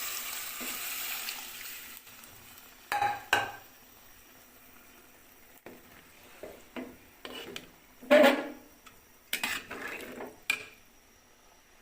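Sizzling in a cooking pot of biryani rice and meat, fading away over the first two seconds. Then a spoon scrapes and knocks against the pot in several separate strokes, the loudest about eight seconds in.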